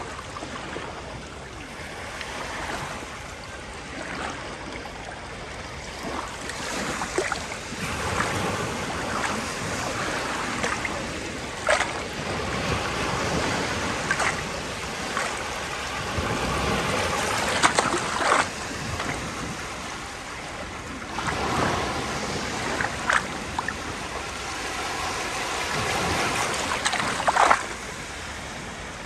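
Sea waves washing in and ebbing, swelling and easing every few seconds, with several brief sharp splashes.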